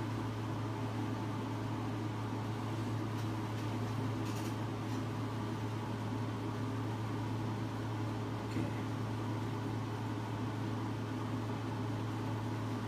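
Steady low hum with a faint hiss: background room noise, without speech.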